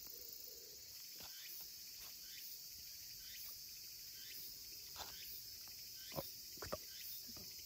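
Steady high-pitched drone of insects, with a few faint clicks and taps, the loudest two close together near the end.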